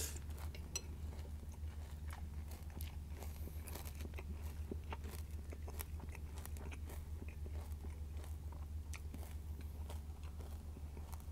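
Close-up chewing of a mouthful of Vector cereal, with many small crisp crunches scattered throughout, over a steady low hum.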